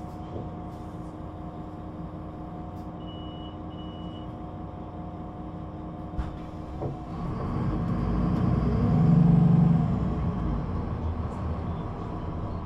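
Solaris Urbino 18 III articulated bus's DAF diesel engine idling, heard from inside the bus, with two short electronic beeps about three seconds in and a couple of clunks around six seconds. The engine then revs up as the bus pulls away through its Voith automatic gearbox, loudest about nine and a half seconds in, then eases back.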